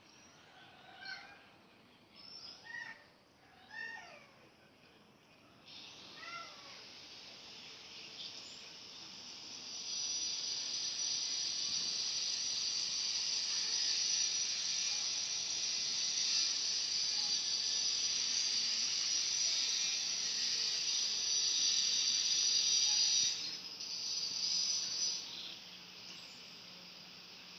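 A few separate bird chirps, then a dense, shrill, steady chorus that swells about ten seconds in, cuts off sharply near the end and briefly starts again.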